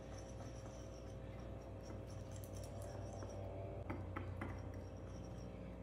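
A small metal utensil stirring protein powder and milk into a pudding in a ceramic bowl: faint scraping against the bowl, with a few light clinks about four seconds in.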